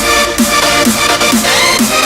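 Electronic outro music with a steady beat of about two pulses a second and a rising synth sweep near the end.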